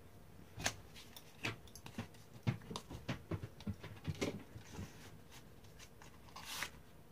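A small cardboard makeup box being opened by hand: a run of light clicks and scrapes as the flap and seal are worked open, then a short rustle of packaging near the end.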